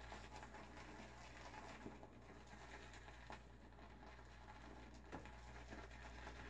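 Faint scratchy swishing of an Omega boar-bristle shaving brush being swirled on a tub of glycerin shaving soap to load it, with a few soft clicks.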